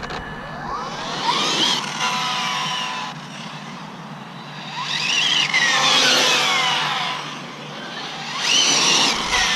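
Arrma Limitless RC car's Castle Mamba Monster X brushless motor whining on a 4S battery as the car speeds along the road. There are three runs: the high whine climbs steeply in pitch as it accelerates, then slides back down.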